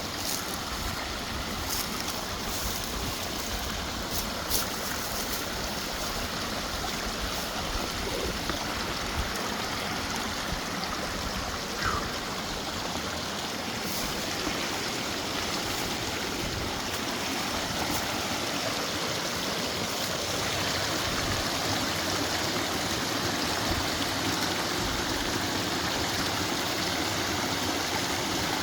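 Mountain creek running over rocks: a steady rush of water that grows slightly louder toward the end.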